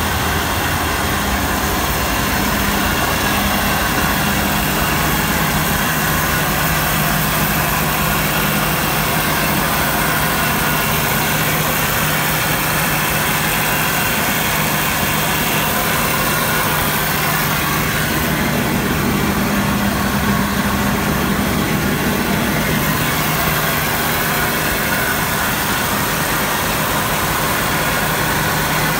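Claas Lexion 760 combine harvester's diesel engine running steadily at idle, an even, unchanging drone with no speech over it.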